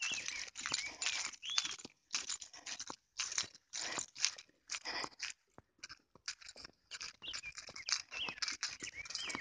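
Footsteps in flip-flops swishing and crunching through tall grass at a walking pace, an irregular string of short rustles. Birds chirp now and then in the background.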